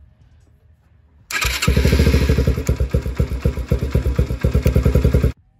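Yamaha TTR-125 dirt bike's small single-cylinder four-stroke engine starting and running with quick, even firing pulses, then stopping abruptly about four seconds later.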